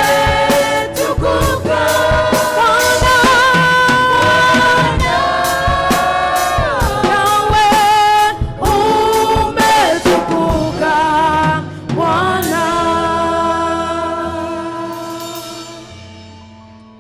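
Gospel choir singing with a band and drums; the song ends on a long held chord that fades out over the last few seconds.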